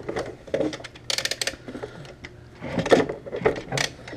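Irregular metallic knocks and clicks, with a short quick rattle about a second in and a few louder knocks near the end, as an alternator is worked up into a cramped engine bay.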